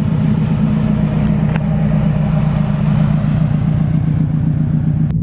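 Subaru WRX's turbocharged flat-four engine running at steady revs through a very loud exhaust.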